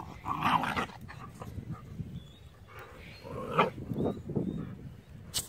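Jindo puppy and a grown Jindo dog play-fighting, giving short dog vocal noises in bursts about half a second in and again around three and a half to four seconds, with a sharp click near the end.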